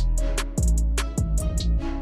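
Background music with a drum beat and deep bass; the drums drop out near the end.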